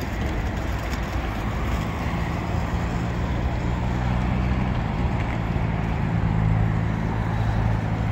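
Steady low mechanical hum with a constant background hiss.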